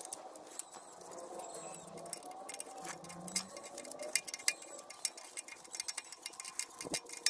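Ratchet wrench clicking in short irregular runs of quick ticks, with scattered metallic taps, as bolts are worked loose.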